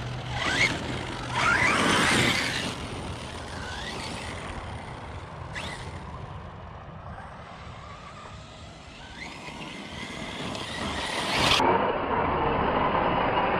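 Arrma Notorious 6S RC truck's brushless electric motor whining as it drives over dirt, with several quick rising and falling whines in the first few seconds. It gets louder again near the end.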